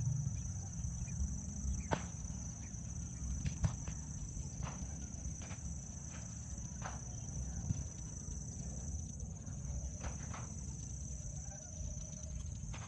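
A steady high-pitched insect drone over a low rumble, with a few scattered sharp clicks and taps.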